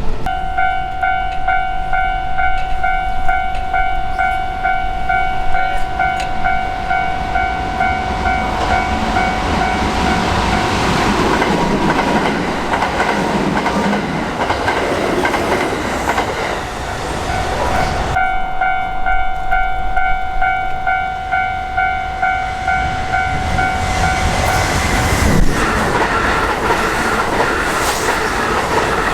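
Japanese level-crossing warning bell ringing in rapid repeated dings, overtaken about halfway through by a Kintetsu Osaka Line train passing with rushing wheel and rail noise. After an abrupt break the bell rings on, and near the end the noise of another train rises.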